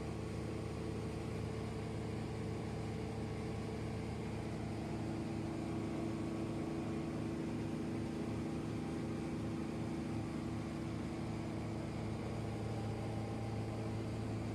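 Motorboat engine running steadily at cruising speed, a constant drone with the rush of water from the hull and wake.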